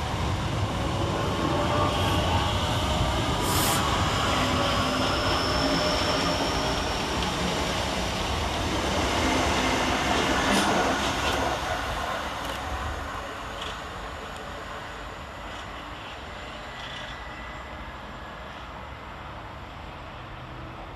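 Two coupled Class 465 Networker electric multiple units pulling out of the station: a rumbling run of wheels on rail with faint whines over it, loud for about twelve seconds and then fading away as the train leaves.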